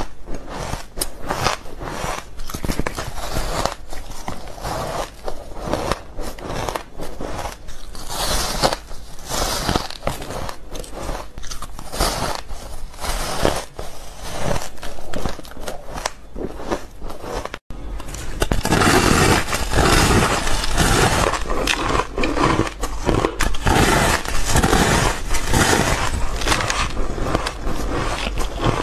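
Fluffy frozen ice being bitten and chewed, with bite after bite of crisp crunching. About two-thirds through, a cut brings in louder, denser crunching.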